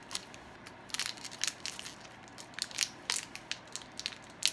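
Candy bar wrapper crinkling and crackling in sharp, irregular bursts as it is twisted and pulled at, without tearing open.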